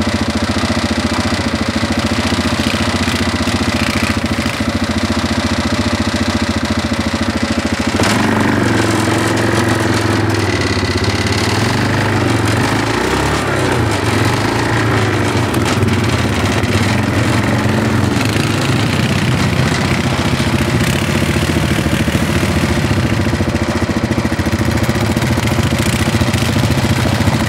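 ATV engine running, churning through deep snow; from about eight seconds in it revs up and down repeatedly.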